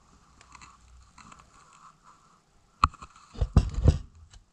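Handling noises from a two-stroke moped cylinder being turned over in the hand: a sharp click just before three seconds in, then a quick run of knocks and rubbing.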